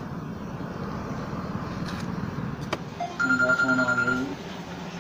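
Mobile phone ringing, a ringtone of a steady high tone over lower notes lasting about a second, starting about three seconds in after steady outdoor background noise.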